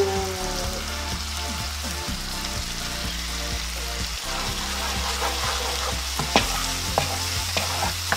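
Spicy gochujang sauce sizzling in a hot frying pan with butter and garlic, stirred with a spatula. A few sharp scrapes of the spatula against the pan come in the second half.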